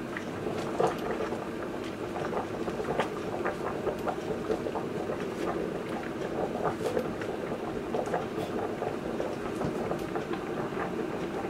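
A pot of spaghetti boiling in water: steady bubbling with many small pops, and a single knock about a second in.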